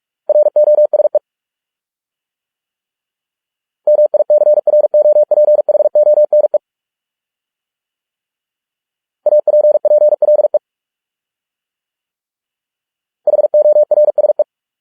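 Morse code sent at 45 words per minute as a steady mid-pitched electronic tone keyed in rapid dots and dashes. Four words come through, each a quick run of one to three seconds, with silent gaps of two to three seconds between them.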